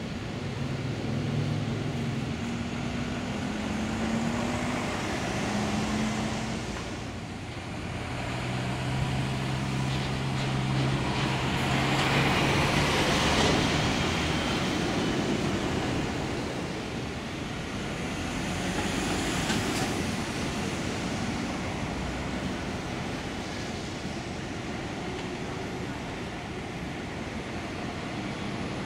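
Busy city road traffic with double-decker buses, cars and lorries running past. Bus engines hum low in the first several seconds, and the noise swells loudest as a bus passes close about halfway through.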